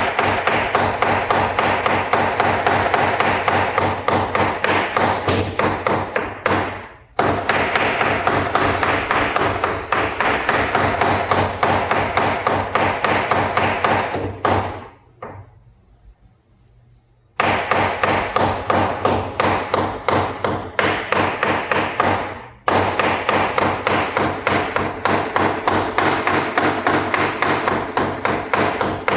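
Chicken meat being minced into keema with a butcher's knife on a chopping block: runs of rapid, even chopping strokes. The runs break briefly about seven seconds in, stop for a few seconds around the middle, and pause briefly again near the end.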